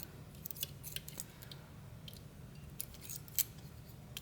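A lock-pick hook and tension wrench working the levers inside a Fichet 450 lever lock: faint, irregular small metal clicks, with one louder click about three and a half seconds in.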